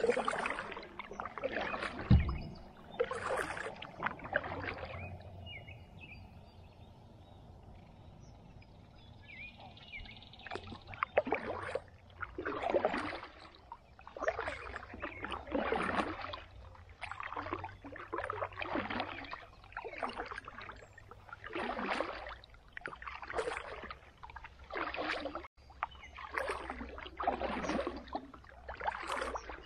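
Kayak paddle strokes through calm water: short splashes and drips about once a second, with a pause of a few seconds early on in which the paddling stops. A single hollow knock about two seconds in, the loudest sound, like the paddle bumping the kayak.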